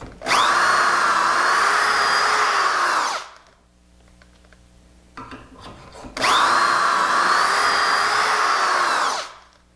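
Electric drill boring dowel holes through a doweling jig's guide into a wooden rail: two bores of about three seconds each, a few seconds apart, the motor running at a steady speed and winding down after each. A few light knocks come in the gap between them.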